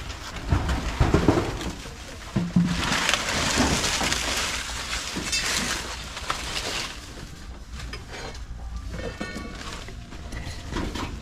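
Knocks and scraping as a corrugated sheet-metal fence panel is worked loose and handled, followed by several seconds of loud rustling noise.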